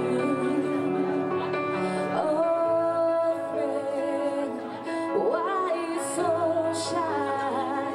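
A solo singer performing live over instrumental accompaniment, with long held notes and a melody that slides up and down.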